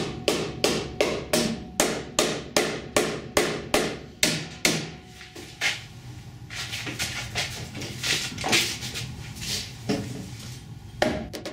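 Rapid, even hammer blows on the steel of an Audi's front chassis rail, about three a second, thinning after about four and a half seconds to a few quieter, irregular knocks. The rail is held under tension by a chain puller while it is struck, to help it stretch back into shape.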